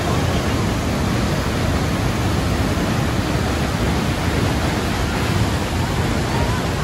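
Large waterfall plunging into a narrow rock canyon: a loud, steady rush of falling water.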